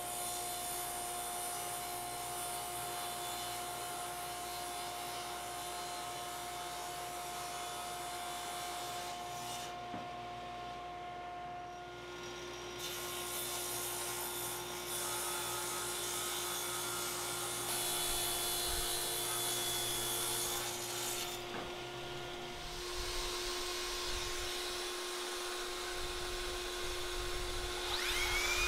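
Table saw running with a steady motor whine while it cuts through a hardwood checkerboard panel, in several edited passes. Near the end a second saw starts to wind up with a rising whine.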